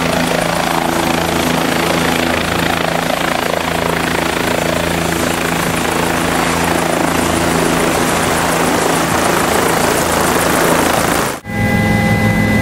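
Helicopter running on the pad with its main rotor turning: a loud, steady noise of turbine and rotor with a low hum underneath. About a second before the end it cuts to the steadier drone of the same helicopter heard inside the cabin.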